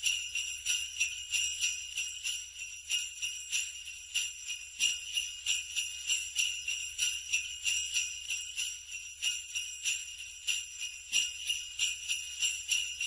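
Jingle bells shaken in a steady rhythm, about two or three shakes a second, with a continuous high ringing.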